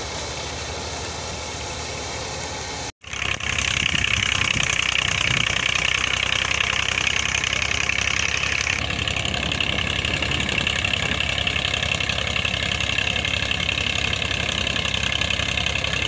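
Tractor-driven wheat thresher running steadily: a continuous engine and machine drone with a hiss of threshed straw and chaff. The sound cuts out for a moment about three seconds in and comes back louder.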